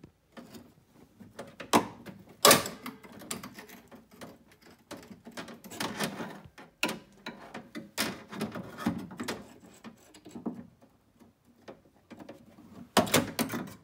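A long screwdriver working at the lock cylinder's retaining clip inside a C3 Corvette door: a string of irregular metal clicks, taps and scrapes, with the sharpest knock about two and a half seconds in and a quick cluster of taps near the end.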